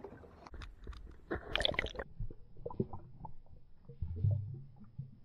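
Water splashing as hands and camera plunge into the river to release a smallmouth bass. The splash lasts about half a second, from a little past one second in, and is followed by muffled underwater sound: soft clicks and a low rumble.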